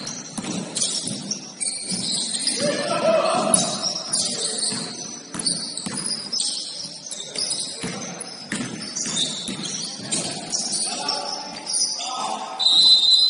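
Basketball game play in a gym: sneakers squeaking sharply on the hardwood court, the ball bouncing, and players shouting. A short, high whistle blast comes near the end.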